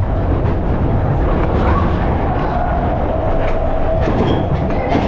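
Matterhorn Bobsleds roller-coaster sled running along its tubular steel track: a loud, steady rumble and rattle of the wheels, with frequent sharp clacks.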